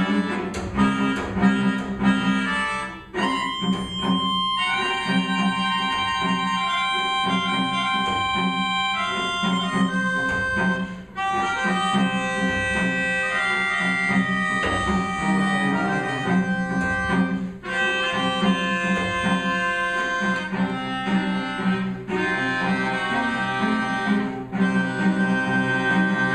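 Melodica and cello duet in a piece imitating a railroad. The cello keeps a steady low line with short percussive chopping strokes in the first few seconds. The melodica then holds long reedy notes and chords over it, broken by brief pauses.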